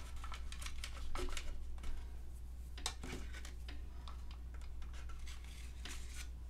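Light taps, clicks and scrapes of paper-crafting supplies being handled on a tabletop, a few scattered knocks rather than any steady rhythm, over a low steady hum.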